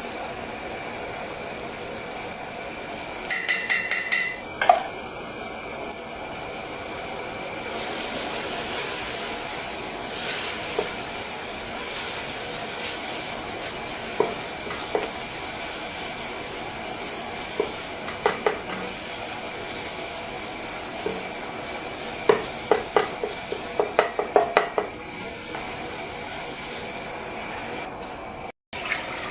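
Onions, tomatoes and green pepper sizzling in a pot with a steady hiss, while a spoon stirs and knocks against the pot in runs of quick taps, most of them in the second half.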